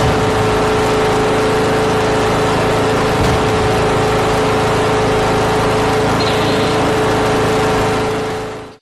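Small lawn tractor engine running steadily at a constant speed, with a steady hum over the engine noise, fading out near the end.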